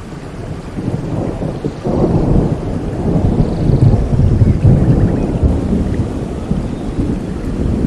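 Rain falling steadily, with a long rolling rumble of thunder that builds about two seconds in and stays heavy through the middle.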